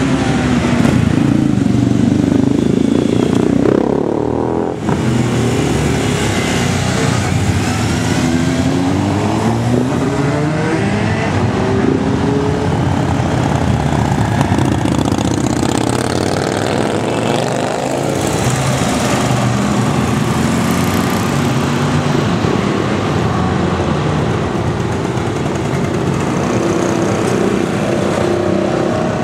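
Several motorcycles riding past one after another, their engines rising and falling in pitch again and again as the riders pull away and accelerate.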